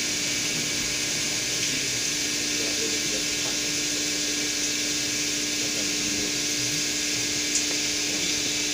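CNC milling machine cutting a block with an end mill under a coolant spray: a steady hiss of coolant and cutting over a steady hum. There is a single sharp click near the end.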